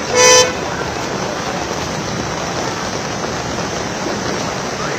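Steady hiss of heavy rain and traffic on a waterlogged road, with one short vehicle horn toot about a quarter of a second in.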